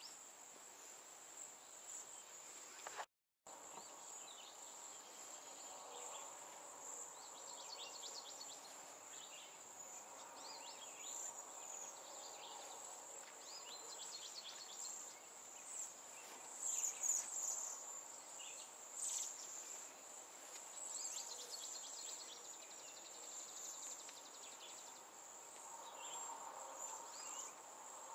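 A steady high-pitched drone of insects, likely crickets, with short bird chirps and trills scattered over it, busiest in the middle and later part. The sound drops out completely for a split second about three seconds in.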